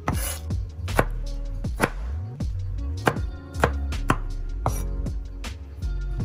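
Cleaver chopping on a wooden cutting board, sharp knocks at an uneven pace of about one or two a second, first through dried red chilies and then through garlic cloves. Background music plays underneath.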